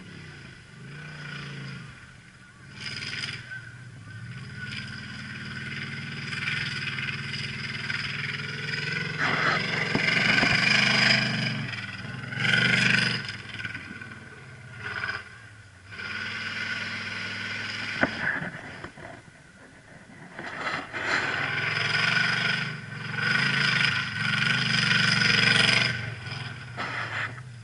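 V8 off-road race vehicle's engine revving hard and easing off as it runs a dirt slalom course. It grows louder and fades several times, loudest as the vehicle passes nearest, about a third of the way in and again near the end.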